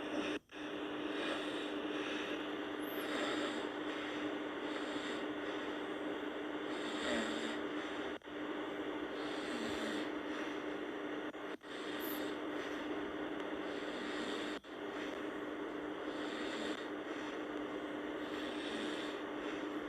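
A sleeping person snoring over a steady background hum. The sound cuts out abruptly for a moment a few times.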